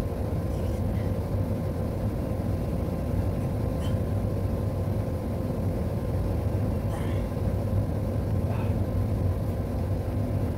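Steady low rumble with a constant machine hum, and a few faint short chirps over it.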